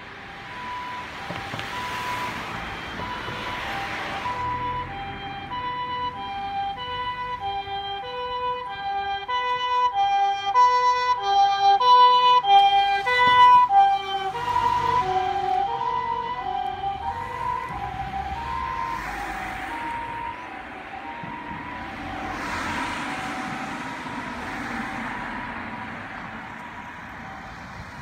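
Japanese ambulance's harmonic siren sounding its two-tone hi-lo pattern, alternating steadily between two notes. It grows louder as the ambulance approaches, is loudest just before it passes about halfway through, drops in pitch as it goes by, then fades as it drives away. Passing cars swish by near the start and near the end.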